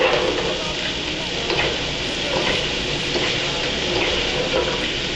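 Food frying in hot oil in a pan, sizzling steadily.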